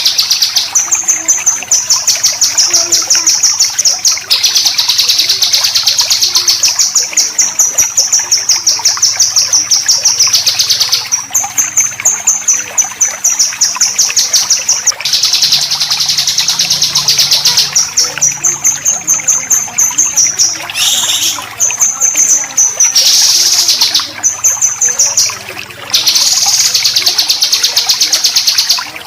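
Songbird besetan: loud, high-pitched, very fast rattling trills in phrases of one to four seconds, separated by short breaks.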